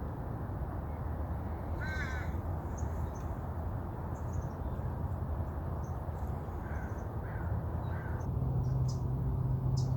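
A crow cawing: one call about two seconds in, then three shorter caws in quick succession near the end, over a steady low background rumble.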